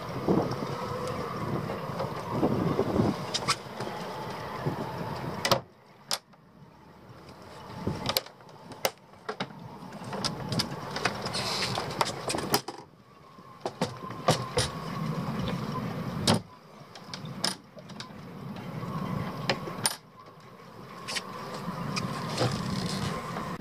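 Scattered clicks and knocks of a sailboat's deck hatch lid and fittings being handled, over a steady outdoor background. The sound cuts off suddenly several times.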